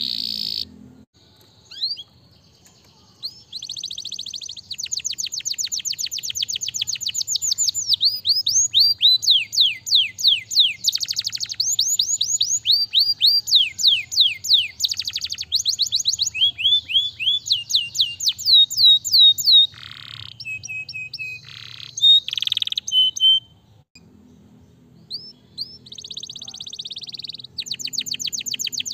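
Canary singing: long rolls of rapid, evenly repeated falling high notes, switching to a new pattern every few seconds, with a few sharper separate notes a little past the middle and short pauses near the start and about three-quarters of the way through.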